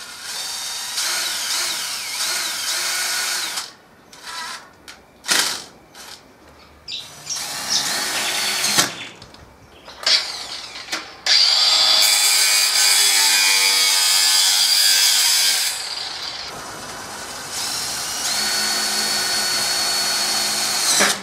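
Cordless drill driving screws to fasten galvanized steel mesh down, running in several long spells with short bursts and knocks between them.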